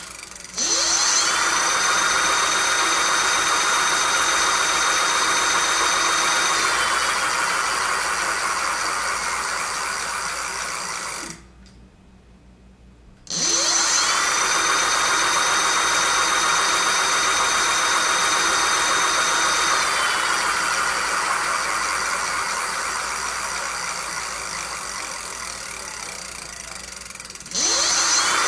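Golden Motor Magic Pie 3 brushless hub motor with its built-in controller, spinning up quickly under throttle with a high electric whine, holding speed, then winding down as the whine falls in pitch. It stops about 11 seconds in, runs up and winds down again two seconds later, and starts a third time near the end.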